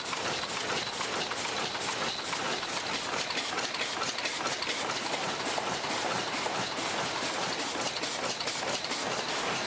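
DEBAO-118S+ZY high-speed paper cup forming machine running in production: a steady, dense mechanical clatter of rapid clicks and knocks from its cams and forming stations.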